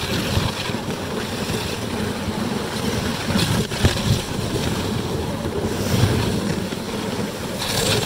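Steady rushing noise of a moving dog sled: the runners sliding over packed snow, with wind buffeting the microphone.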